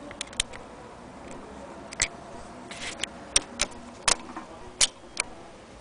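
Irregular sharp clicks and taps, about eight in all, from the parts of an antique Vesta hand-crank sewing machine as they are handled by hand, with a brief rustle near the middle.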